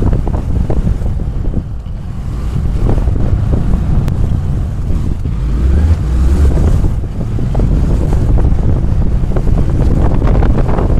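Wind buffeting the microphone of a camera on a moving motorcycle: a loud, low, rumbling rush that eases briefly about two seconds in and again around seven seconds.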